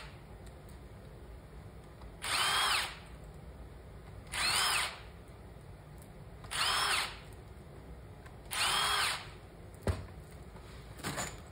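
Cordless drill-driver backing out 1/4-20 intake bolts: four short runs about two seconds apart, each motor whine rising and then falling in pitch as a bolt spins out. A sharp click and a brief last run come near the end.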